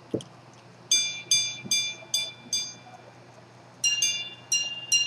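Antique minute-repeater pocket watch striking the time on its gongs. A click sets it off. Then five evenly spaced hour strikes on the lower gong, a quick ding-dong pair for the quarter, and the first single minute strikes on the higher gong.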